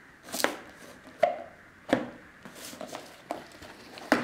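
Cardboard product box being handled and turned over on a cutting mat: about five sharp knocks at irregular intervals as it is set down and shifted, with brief scraping rustles of cardboard between them.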